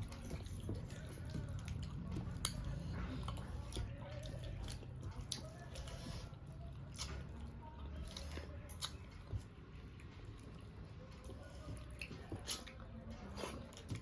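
A person eating rice and fish curry by hand: chewing with scattered short, sharp wet mouth clicks and smacks, over a low steady hum.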